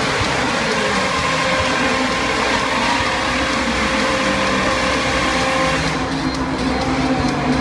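Race car engines at high revs passing on the circuit: a loud, dense engine noise with steady tones running through it. It drops back about six seconds in.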